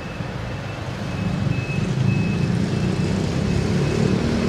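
A low engine rumble that grows louder about a second in, with a faint high whistle coming and going.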